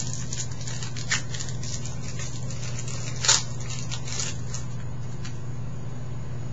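Trading cards being handled and flipped through, a few short rustles and clicks, the sharpest about three seconds in, over a steady low electrical hum.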